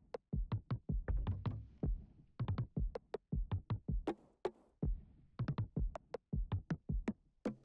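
Electronic background music: a drum-machine beat of sharp, quick hits over low bass thumps.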